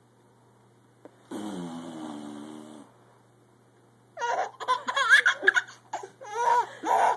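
A fart sound, about a second and a half long and rising in pitch. Then, after a short pause, a baby laughing in a string of bursts.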